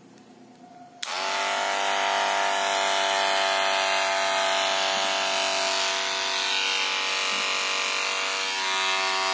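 Electric hair clipper switched on about a second in and running with a steady, very loud buzz. The noise comes from the blade seat having worked loose.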